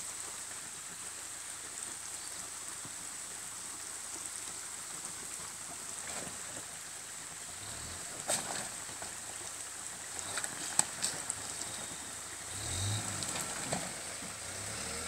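Shallow rocky stream running with a steady rush, under the faint running of a Mitsubishi L200 pickup's engine as it crawls through the water; the engine's low rumble swells about two-thirds of the way through. A few short sharp knocks around the middle.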